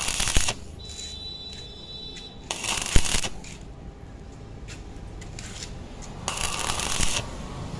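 Stick welding arc crackling in short bursts on thin square steel tubing: the arc already running stops about half a second in, then is struck again twice, about three and a half seconds apart, each burst lasting about a second. The electrode is struck and broken in stitches to bridge a large gap in the thin tube.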